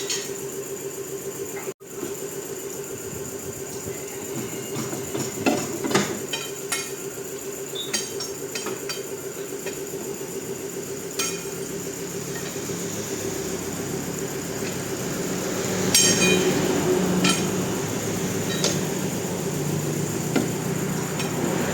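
Scattered metallic knocks and clinks of hand tools working on a heavy truck wheel, over a steady mechanical hum.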